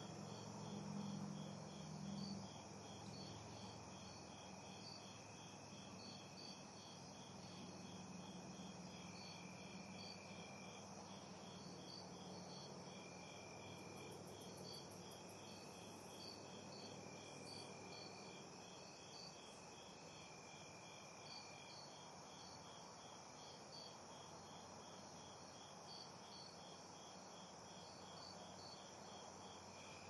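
Night insects: crickets chirping in a steady, even pulse, with a second insect giving short buzzing trills now and then. A faint low rumble of distant cars sits underneath at first and fades away over the first several seconds.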